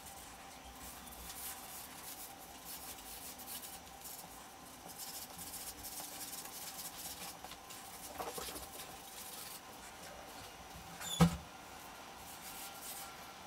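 Felt-tip marker scratching across paper in quick, short strokes, faint, with one sharp knock about eleven seconds in.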